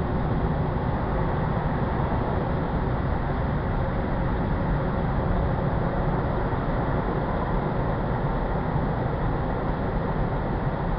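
Car wash machinery running: a steady, even rumble and rush of noise with no breaks.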